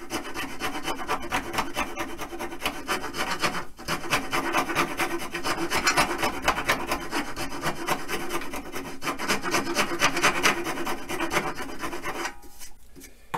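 Coarse file rasping back and forth across the end of an oak dowel rod, tapering the tip of a drumstick. Rapid, steady strokes with a brief pause about four seconds in; the filing stops about a second before the end.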